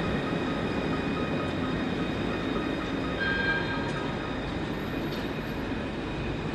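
Electric tram running: a steady rumble of wheels on rail with a faint, steady whine above it. A short higher tone rings out about three seconds in.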